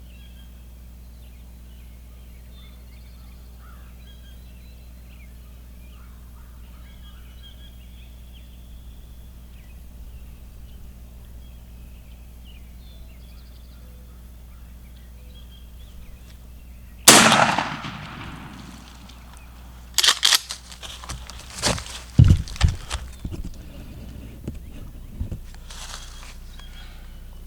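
Faint bird calls over a quiet field, then a single very loud shotgun blast about two-thirds of the way in, fired at a gobbler, with its report fading away. A few seconds later comes a cluster of sharp knocks and rustling.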